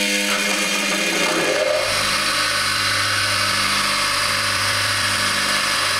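Bench grinder with a polishing wheel running steadily with a motor hum, and from about two seconds in a louder hiss as a freshly silver-plated piece is pressed against the spinning wheel to buff the dull plating to a shine.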